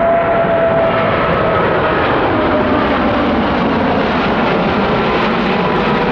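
American Airlines Boeing 777-300ER's twin GE90 turbofans at departure power as it climbs out overhead: a loud, steady jet roar with a whining tone that slowly falls in pitch.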